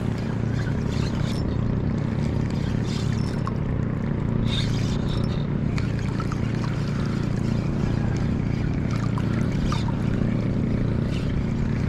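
A steady low engine drone running without change, with faint scattered ticks and small water trickles over it.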